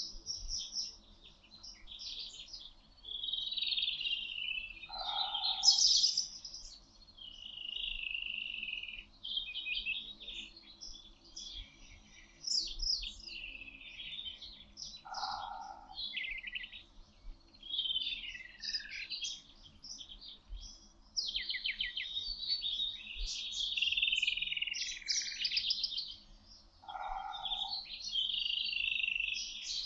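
Several wild birds singing at once, a chorus of overlapping high chirps, trills and whistled phrases. Underneath, a lower two-note call repeats about every ten to twelve seconds.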